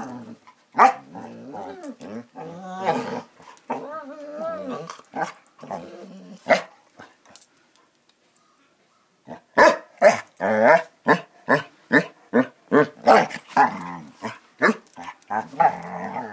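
Two basset hounds play-fighting: pitched, wavering growls and grumbles, a pause, then a rapid run of short play barks about two to three a second through the second half.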